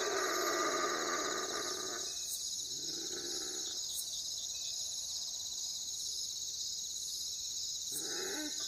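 Owl hooting: a fading call at the start, one low hoot about three seconds in, and another beginning near the end, over a steady high-pitched background drone.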